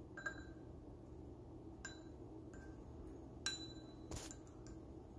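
A clear plastic utensil tapping and clinking against a ceramic bowl: several light, sharp clinks, the loudest about three and a half seconds in, followed by a short scrape.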